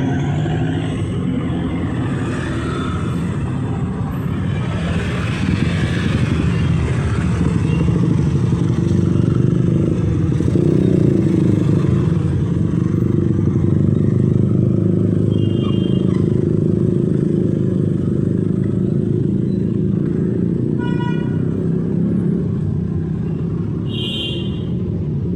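City street traffic: a steady rumble of passing motorcycles and cars, with a few short high tones in the second half.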